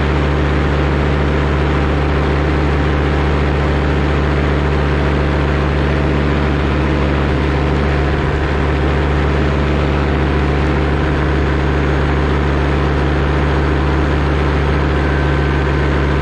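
Paramotor engine and propeller running steadily at an even throttle, a continuous loud drone with no change in pitch.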